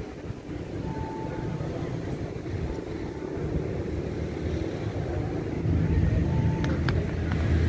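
Low rumbling outdoor background noise with no clear single source, getting louder about six seconds in.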